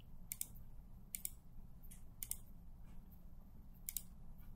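Computer mouse clicking about four times, each click a quick press-and-release double tick, over a faint steady low room hum.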